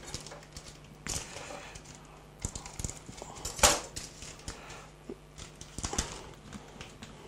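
Light knocks and clicks of a dried-oregano container being handled and opened in a kitchen, scattered through the stretch, the loudest about three and a half seconds in.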